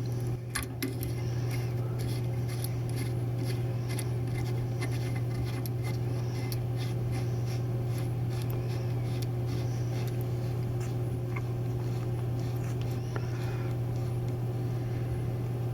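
A steady low hum with scattered small clicks and scrapes of metal parts being handled: split rings and a threaded tail housing being fitted by hand onto a cone penetrometer's SMR module.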